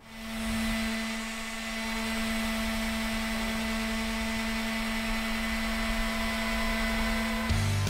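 Ryobi random orbital sander running on a cedar tongue-and-groove plank: a steady motor whine over the hiss of sandpaper on the wood. Music comes in near the end.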